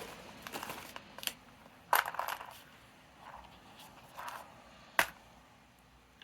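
Small scrapbooking embellishments being sorted through by hand: light rustling with a few sharp clicks and clinks of hard little pieces, the loudest about two and five seconds in.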